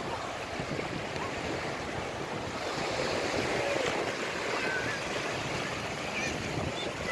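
Small waves lapping and washing up the sand at the water's edge, a steady surf wash.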